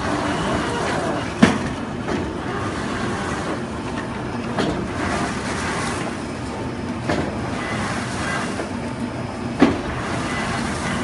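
Die-cutting and hot-stamping machine running with steady mechanical noise and a sharp knock from each press stroke about every two and a half seconds; the knocks near the start and near the end are the loudest.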